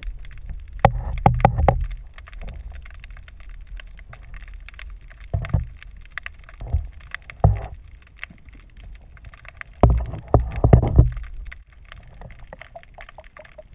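Muffled knocks and water movement heard through a GoPro's waterproof housing underwater: irregular clusters of dull thumps over a low steady rumble, the loudest cluster near the end.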